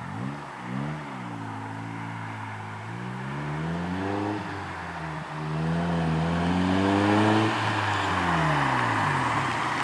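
Honda Civic's B16A2 1.6-litre VTEC four-cylinder engine revving: two quick blips, then two longer climbs in revs, the second the loudest, falling back to a steady idle near the end.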